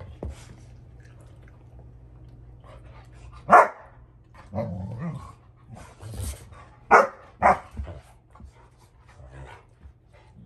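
Rottweilers, an adult and a puppy, squabbling over a toy: a sharp bark about a third of the way in, then two quick barks close together past the middle, with a short low growl and scuffling between them. It is an adult dog warning the puppy off.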